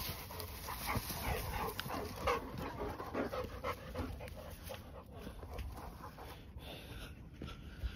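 A large mastiff-type dog panting close to the microphone, quick breaths about three a second, heaviest in the first half.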